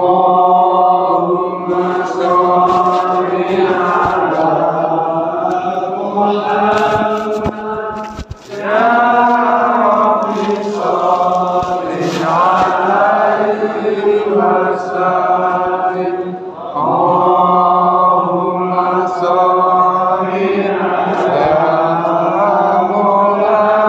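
Islamic devotional chant, sung in long melodic phrases with brief breaks about a third and two-thirds of the way through. It is of the kind chanted over a mosque's loudspeakers during the handshaking after Eid prayer.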